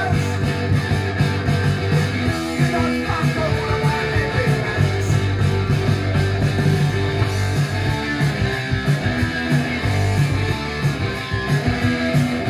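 Oi! punk rock playing from a vinyl LP on a turntable: guitar and bass over a steady, driving drum beat.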